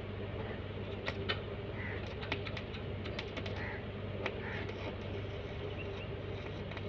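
Scattered light clicks and taps of hand work on a lamp-post fitting, over a steady low hum, with a few short bird calls in the background.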